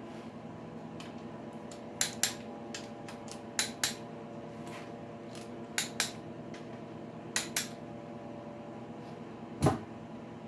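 Click-type torque wrench breaking over on the connecting-rod bolts of a Ford 351 Windsor stroker, four sharp double clicks about every second and a half: the bolts are already at spec torque. A heavier metal clunk near the end, over a steady hum.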